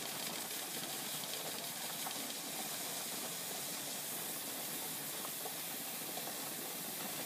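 Steady hiss of steam escaping through the air vent on a dial-gauge pressure canner's lid. The vent has not yet sealed and popped up, so pressure has not begun to build on the gauge.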